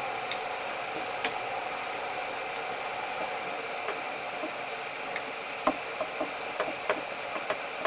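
Steady hiss of the 3D printer's running fans with a faint high whine. From a little past halfway there are several light clicks of a screwdriver and pliers against the metal hot end while the nozzle and heat block are being tightened.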